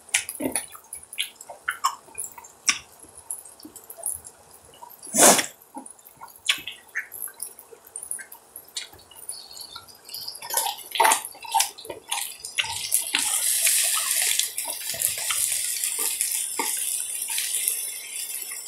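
Beef rib meat sizzling on a hot iron griddle. The sizzle rises to a steady dense hiss about thirteen seconds in. Before that there are scattered clicks and light crackles, with one louder knock about five seconds in.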